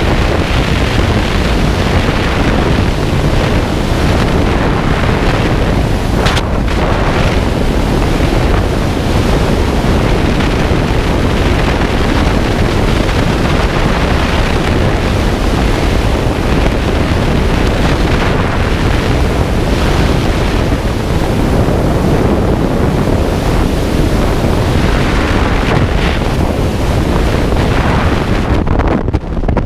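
Loud, steady rush of freefall wind buffeting the skydiver's camera microphone. Near the end the rush drops away and turns fitful as the parachute deploys and freefall ends.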